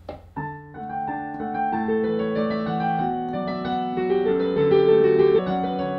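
Digital piano played with both hands in a slow passage of overlapping notes and chords, getting louder toward the end. A short click comes just before the first notes.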